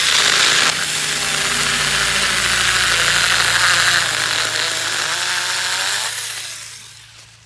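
Saker 20-volt cordless mini chainsaw running steadily under load, its chain cutting through a tree trunk nearly four inches thick. The sound dies away over the last second or so.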